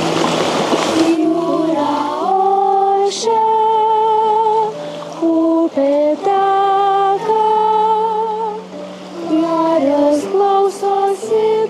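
Voices singing an opera passage, holding long notes with vibrato over a low held note. It opens with about a second of a rushing, water-like hiss that stops abruptly.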